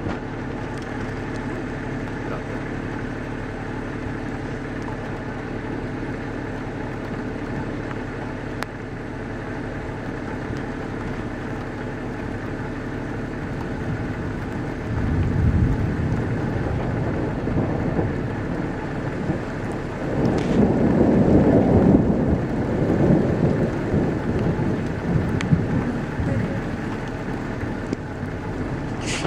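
Steady rain from a thunderstorm, with rolling thunder: a low rumble swells about halfway through, and a louder, longer rumble follows some five seconds later.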